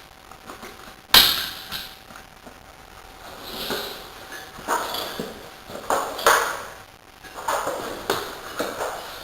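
Rear tyre change under way: one sharp knock about a second in, then scattered clicks, knocks and scrapes as tools and wheel parts are handled.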